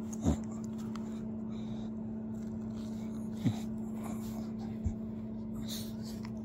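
A steady low hum, broken by three brief low sounds from the pit bull puppy: one just after the start, one about halfway through, and a dull thump a second and a half later.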